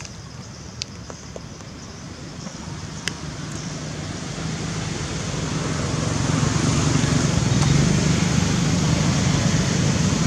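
Vehicle noise, a low rumble that grows steadily louder across the stretch, with a few small sharp clicks in the first few seconds.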